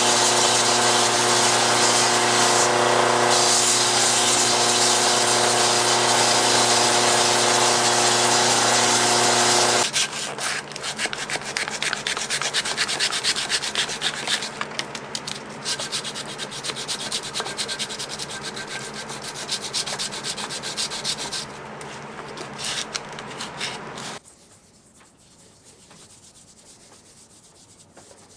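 Sanding in the restoration of a WW2 Ka-Bar knife. An electric power tool runs steadily with a motor hum for about ten seconds, then stops. After that come quicker, quieter hand-sanding strokes, which end a few seconds before the close.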